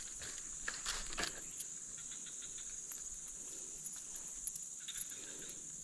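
Steady high-pitched chorus of insects such as crickets, with a few faint scattered clicks.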